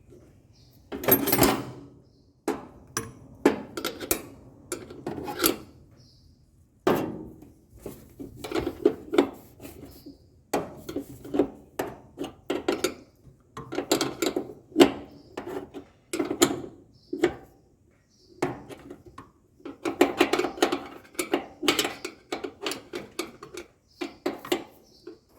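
Irregular metal clinks, knocks and scrapes of hand tools and parts as a dryer's idler pulley and its tension spring are fitted to the motor mount. The sounds come in clusters, with brief lulls about a quarter of the way in and again past halfway.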